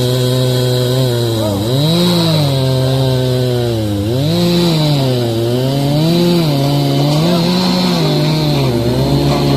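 Chainsaw running at high speed while cutting wood, its engine pitch sagging and recovering about six times as the chain bites in under load.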